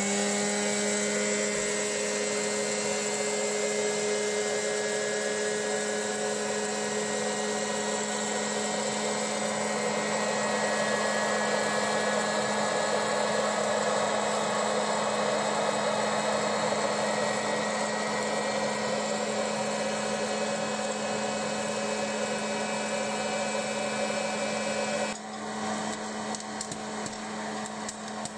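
Suntec POP-8618 hot-air popcorn maker running: its blower motor gives a steady whine over the rush of hot air. Near the end the sound drops a little in level and light ticks come in, as kernels start to pop.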